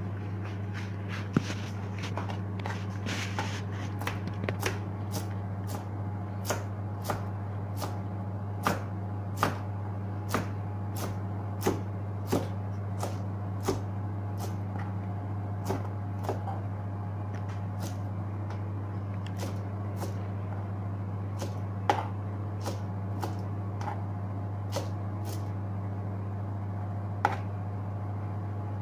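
Knife chopping cooked vermicelli on a plastic cutting board: irregular sharp taps, frequent in the first half, then only now and then, over a steady low hum.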